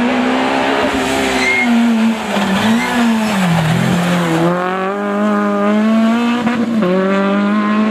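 Renault Clio rally car's engine at racing revs as it passes on tarmac. The pitch drops as it brakes about three to four seconds in, then climbs as it accelerates away, with a gear change near seven seconds and the revs rising again.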